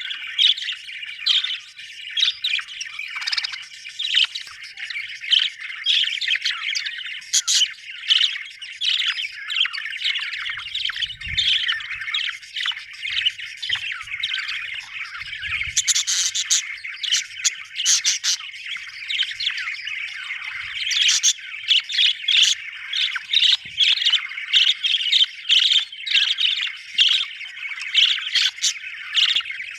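Budgerigars chattering continuously, a dense stream of warbling chirps with frequent short, sharp calls.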